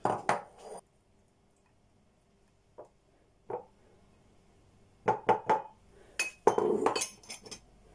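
Glass jar and ceramic bowl clinking and knocking as batter is scraped from the bowl into the jar: a few ringing clinks at the start, two small ticks around three seconds in, then a quick run of knocks and clinks from about five seconds in.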